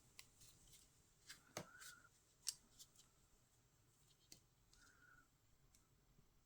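Faint, scattered small clicks and a couple of soft rubs from a plastic tatting shuttle and thread being handled while tatting stitches; otherwise near silence.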